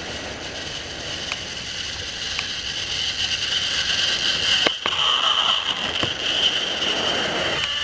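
Motorized Trackmaster toy train running on plastic track: a steady high electric-motor whine with wheel rattle and a few light clicks, getting louder as the engine approaches.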